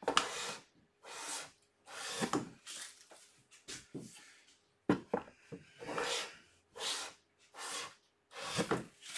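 Hand plane taking repeated strokes along the edge of a wooden board, each stroke a short rasping hiss of the blade shaving wood, about one a second, with a sharper knock about five seconds in. The plane is jointing the board's edge straight.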